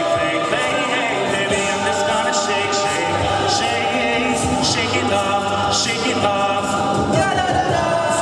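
All-male a cappella group singing, a lead voice over close-harmony backing chords. Near the end, audience cheering breaks in.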